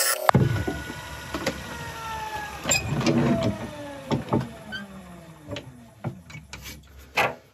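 Wood lathe switched off and coasting to a stop: its motor and drive whine falls steadily in pitch over several seconds. A scattering of metal clanks and knocks comes from the tool rest being moved.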